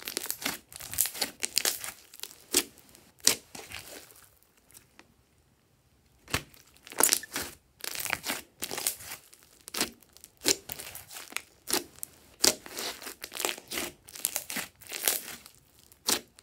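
Glossy slime squeezed and pressed by hand, giving off crackling and popping as trapped air bubbles burst, in bursts with a pause of about two seconds near a third of the way through.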